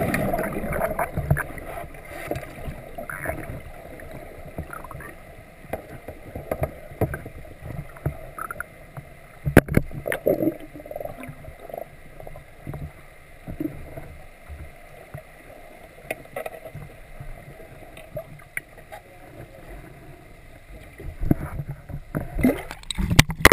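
Water sloshing and gurgling around a camera held in the water beside a freshly harpooned yellowfin tuna, with irregular sharp knocks, the strongest about ten seconds in and again near the end.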